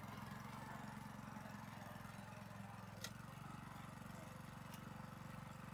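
Small engine of a tracked elk-pulling machine running steadily as it is driven over rough forest ground, with a few light clicks.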